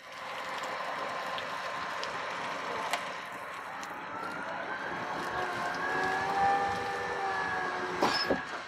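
Concrete pump and mixer truck machinery running: a steady mechanical noise with a sharp knock about three seconds in. About five seconds in, a whine of several tones rises slightly and holds, and a couple of clatters come near the end.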